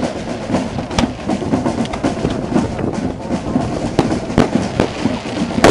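Fireworks going off: continuous crackling with sharp bangs, one about a second in and several close together near the end, the loudest just before it stops.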